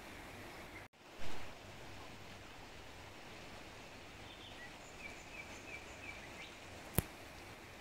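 Quiet outdoor ambience at night: a steady low hiss with a few faint, short high chirps. A brief loud rush comes just after a cut about a second in, and a single sharp click comes near the end.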